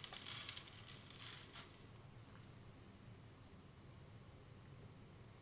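A folded paper sign rustles briefly as it is set down on a plywood board, starting with a click. After that there is only a faint steady low hum with a few small ticks.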